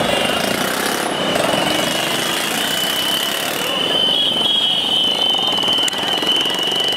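Loud, dense traffic noise of motorcycles and other vehicles moving in a crowded procession, with a steady high-pitched tone held over most of it.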